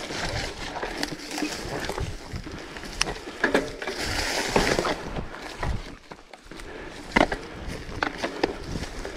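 Riding over a rough, bumpy track: irregular knocks and rattles as the wheels hit bumps, with a hiss of wind on the microphone swelling about four to five seconds in.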